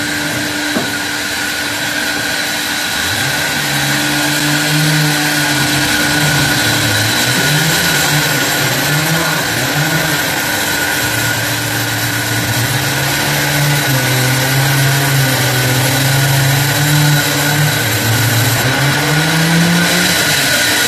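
A sawmill band saw running and cutting through a walnut log on its carriage: a dense cutting noise with a steady high whine. About three seconds in, a lower hum sets in and wavers up and down in pitch as the saw works through the wood.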